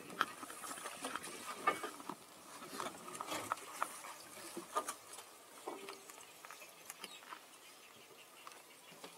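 Irregular light clicks, taps and rubbing close to the microphone of a camera being moved and jostled, thinning out after about five seconds.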